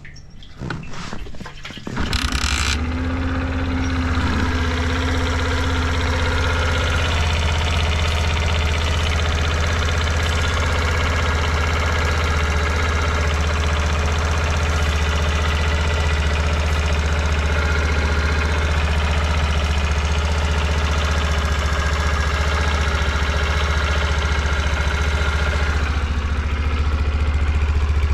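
Suzuki GS50's 49 cc four-stroke single-cylinder engine starting about two seconds in after brief clattering, then idling steadily. The idle is quiet with no abnormal noise, as the seller describes it.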